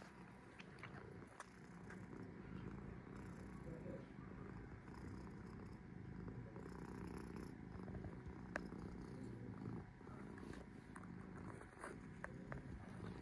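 Domestic cat purring steadily, a low continuous rumble, with a few faint clicks.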